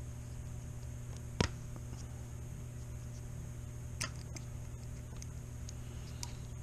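Small hand tools and RC car parts being handled on a work surface: a sharp click about one and a half seconds in and a smaller one near four seconds, with a few faint ticks, over a steady electrical hum.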